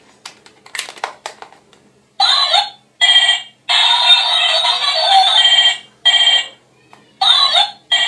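Ben 10 Alien Force toy telephone: a few plastic clicks, then from about two seconds in it plays loud electronic ringing tones in bursts, several short ones and one lasting about two seconds.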